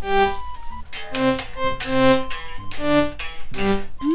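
A synthesizer keyboard played one note at a time, a short run of about eight to ten single notes at different pitches, with no chords.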